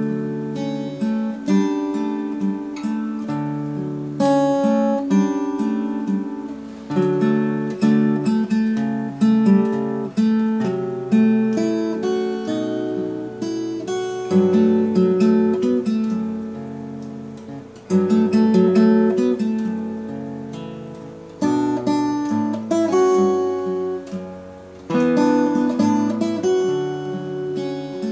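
Collings OM2H steel-string acoustic guitar played fingerstyle: a slow melody picked over bass notes and chords. Each phrase rings and fades before fresh notes are plucked.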